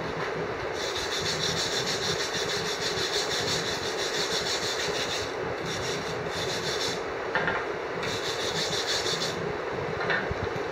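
Dry rasping, scraping noise in three spells, over a steady hum.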